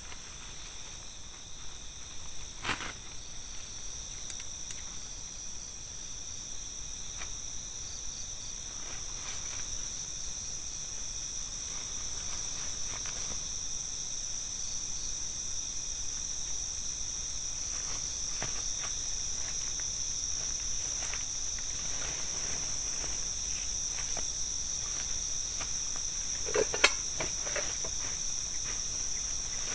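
A steady chorus of night insects, a continuous high-pitched trill that grows slightly louder over the stretch. Over it come scattered rustles and clicks of a dome tent being handled, with a sharper knock near the end.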